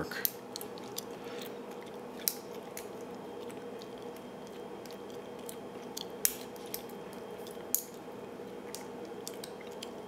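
Small metallic clicks and scrapes of a Peterson bypass tool being worked into an old brass American Lock padlock against its latch spring, a few sharp clicks scattered among quieter fiddling over a steady faint hum.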